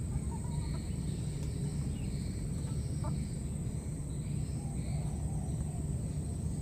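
Outdoor ambience: a steady low rumble and a steady thin high tone, with a few faint short squeaks from a baby monkey.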